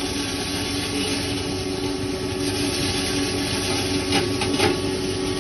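A 3 HP maize grinding mill running steadily with a constant hum, corn kernels sitting in its hopper over the feed opening. A couple of brief rattling clicks come about four seconds in.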